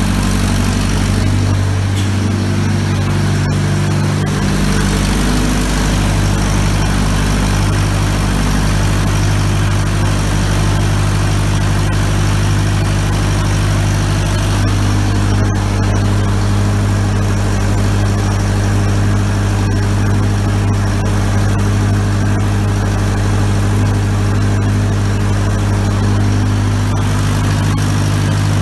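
1956 Ford 640 tractor's four-cylinder gasoline engine running steadily on its first test run after a rebuild, with small shifts in its note now and then.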